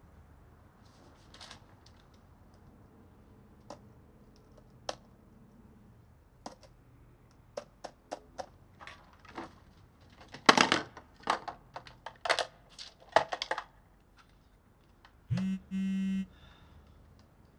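Laptop keyboard keys being typed: scattered clicks at first, then a fast, loud flurry of keystrokes. Near the end comes a short buzzy electronic tone that sounds twice in quick succession.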